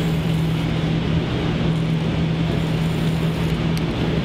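Steady drone of restaurant kitchen machinery: an even rushing noise with a constant low hum underneath.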